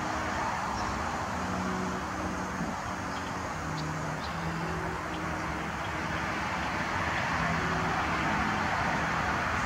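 Steady road-traffic noise, with low humming tones that shift pitch every second or so and a few faint high ticks.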